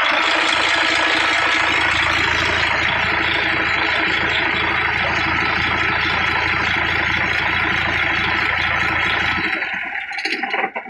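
Mercedes-Benz Actros 1841's V6 diesel engine running steadily at idle, close up. The engine is being checked for hard starting, which the mechanic puts down to weak injection pressure at some of the injectors. About nine and a half seconds in, the low rumble stops and the sound dies away.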